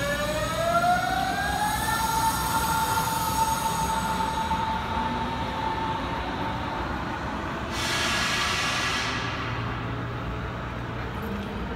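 Berlin S-Bahn class 481 electric train pulling away. Its traction motors whine, rising in pitch over the first two seconds, then holding a steady tone that fades as the train draws off. A short hiss comes about eight seconds in.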